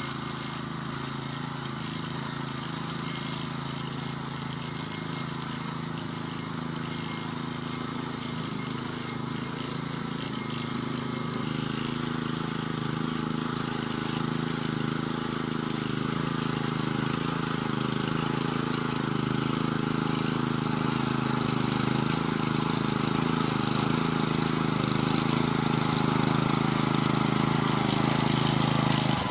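Vari two-wheel walking tractor's engine running steadily while it pulls a tine cultivator through loose garden soil, growing louder as the machine comes closer, with a step up in loudness about twelve seconds in.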